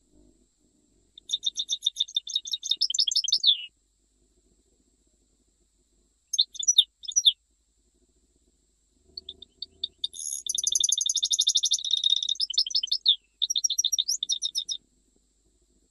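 European goldfinch singing a Jijel-style song: rapid, high twittering trills in three bouts, the first ending in a falling note about three and a half seconds in, a short burst around seven seconds, and the longest from about nine to fifteen seconds.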